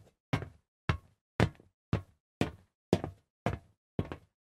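A steady run of short, dry knocks, about two a second, with dead silence between them: an added footstep sound effect for a walking stop-motion figure.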